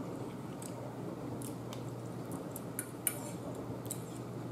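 Metal fork clinking and scraping against a dinner plate while scooping food, a few light clinks with the sharpest about three seconds in, over a faint low steady hum.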